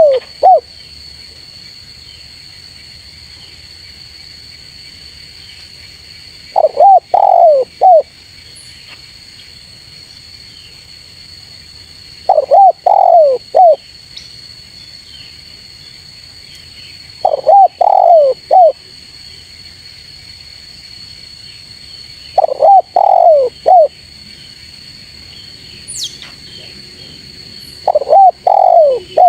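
Spotted dove cooing: a phrase of three or four short coos, each note rising then falling, repeated about every five to six seconds, with a steady high-pitched whine in the background.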